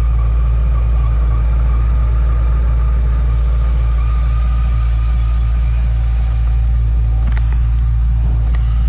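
Supercharged engine with a freshly installed Whipple 2.9 L supercharger and a Max Plus cam, idling steadily from cold, with a steady high whine over the low idle rumble. The engine is still cold, so the idle is really quiet.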